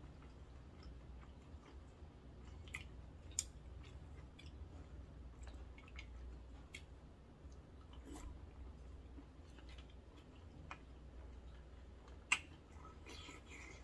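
Quiet eating sounds: chewing of seafood noodles, with scattered sharp clicks of wooden chopsticks and a wooden spoon against the metal pot, two of them louder, about three seconds in and near the end.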